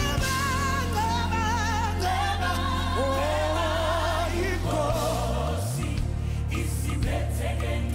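Live gospel music: a woman's lead voice sings with a wide vibrato over backing singers and a band with a steady low bass line.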